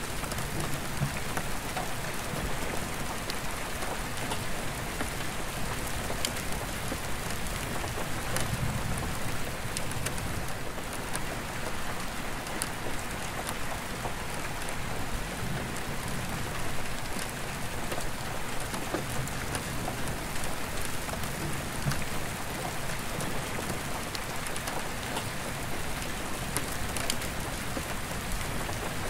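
Steady rain falling on an attic roof skylight: a constant hiss of rain with individual drops ticking on the glass, and a low rumble of distant thunder now and then.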